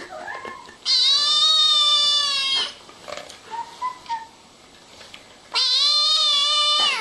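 A cat meowing: two long, drawn-out meows, the first starting about a second in and the second near the end, with a short faint chirp between them.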